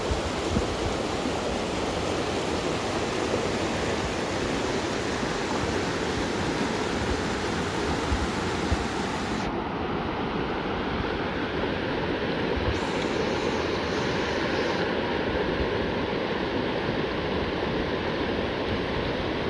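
Shallow river rushing and splashing over rocks and small rapids: a steady, even rush of water. Its bright hiss drops away suddenly about halfway through.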